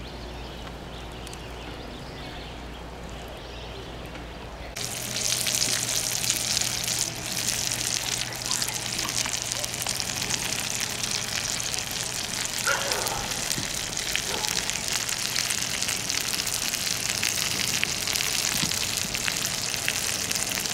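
Chicken sizzling on a hot griddle over a wood fire, pressed flat under an iron skillet. A steady, crackly sizzle that gets much louder about five seconds in.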